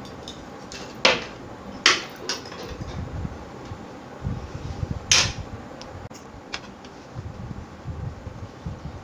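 Metal forks and spoons clinking and scraping against serving plates during a meal, a few sharp clinks with the loudest about five seconds in.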